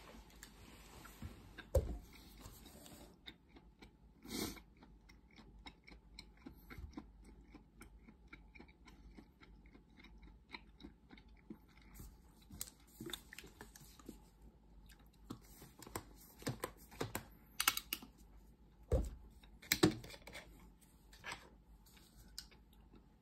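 Faint, scattered small clicks and soft taps at an irregular pace, with a few louder knocks: one about two seconds in, one about four seconds in, and a cluster of them near the end.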